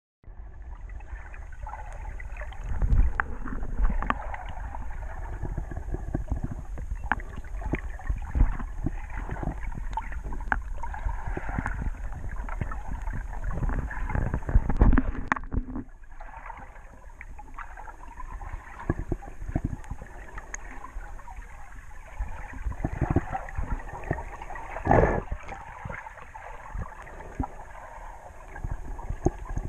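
Muffled underwater sound picked up by a camera held underwater while snorkeling: water sloshing and gurgling with many small clicks and knocks, busier and louder in the first half and quieter after about halfway through.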